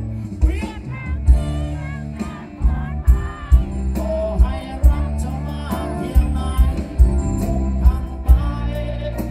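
Live band music over a concert PA: a male lead singer sings into a microphone over bass and a steady drum beat.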